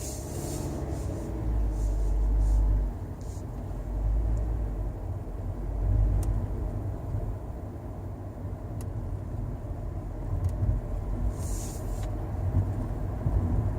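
Car-cabin road and engine rumble while driving, broken by short clicks from the Toyota Sienta's audio system about six, nine, ten and a half and twelve seconds in. The noise began after the head unit was replaced, and the owner suspects audio static or a poorly installed head unit.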